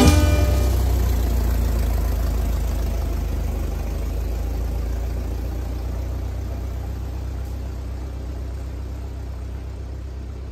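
1915 Model T Ford's four-cylinder engine running as the car drives away, a steady low rumble that fades as it gets farther off.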